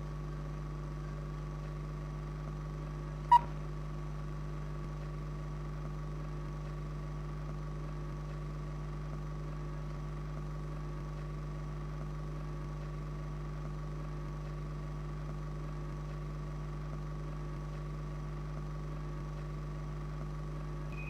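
Steady low hum with a faint high whine and hiss, the background noise of an old film soundtrack, with one sharp click about three and a half seconds in.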